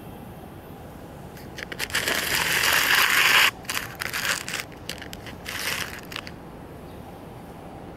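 Close, loud crinkling and crackling rustle. It starts about one and a half seconds in, is loudest for about a second and a half, then breaks into shorter bursts and stops about six seconds in.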